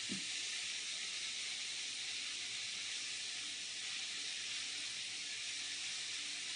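Steady sizzle of fish fillets frying in butter in a pan.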